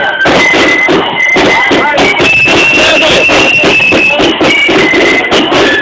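Marching flute band playing: a high flute melody of held notes over a steady drum beat.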